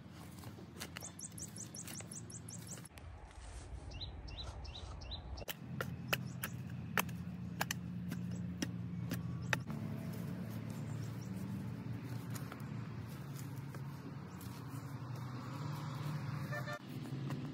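Hoe and spade chopping into damp earth while a pit is dug: a run of sharp strikes, about two a second, for a few seconds in the middle. Birds chirp, with a quick run of repeated notes about a second in and a few falling notes around four seconds in.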